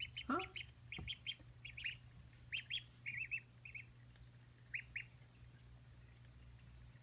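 One-week-old ducklings peeping: short high peeps in quick clusters of two to four, thinning out in the last couple of seconds.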